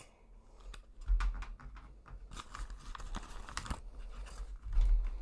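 Small plastic wrapper crinkling and tearing as it is opened by hand, with light clicks of small plastic toy pieces and two dull thumps, about a second in and near the end.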